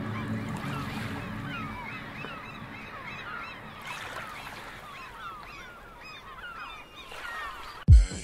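A flock of gulls calling, many short overlapping cries. A low drone fades out in the first second or so, and a sudden loud low boom comes right at the end.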